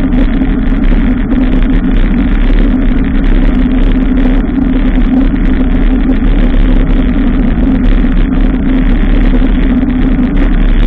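Steady, loud rumble of wind and road noise on the microphone of a camera travelling on a moving bicycle, with no change or separate events.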